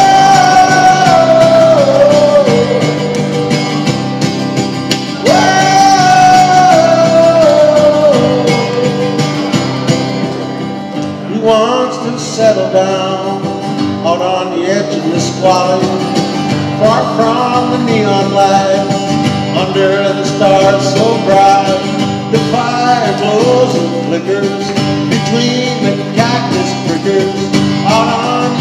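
Live acoustic guitar strummed under a man's singing voice. He holds two long notes that slide downward, one near the start and one about five seconds in, then sings shorter phrases that rise and fall.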